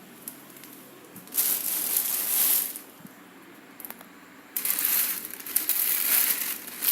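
Packaging being handled as a new electric fan is unwrapped, crinkling and rustling in two bursts, the second starting partway through.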